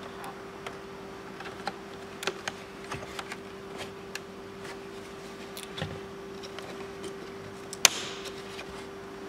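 Small scattered clicks and creaks of a rubber door seal being pulled off the door frame and plastic trim being handled, with one louder snap about eight seconds in. A faint steady hum sits underneath.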